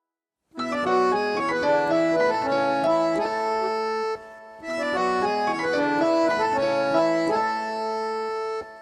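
Harmonium playing a mobile-phone ringtone melody in chords, the phrase played twice with a short break between, then dying away near the end.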